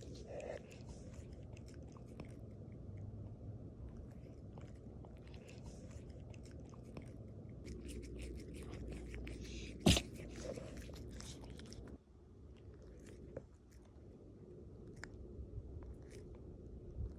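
A cat chewing, with many small crunching clicks, and one loud sharp click about ten seconds in.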